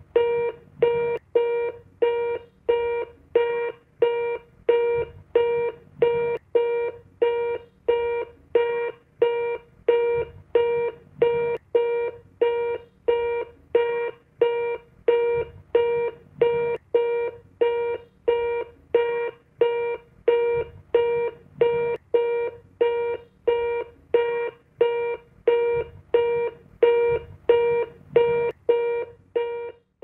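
Telephone disconnected tone: a steady beep of one pitch repeating evenly, about three beeps every two seconds, signalling that the call has been cut off.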